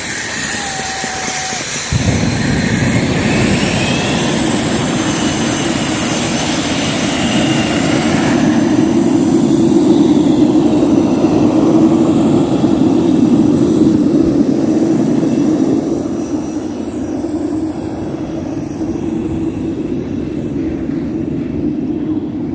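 Homemade small jet turbine on an ice sled running with a high whine. About two seconds in, a loud jet roar sets in abruptly and the whine climbs in pitch as the turbine spools up. The roar eases a little later on.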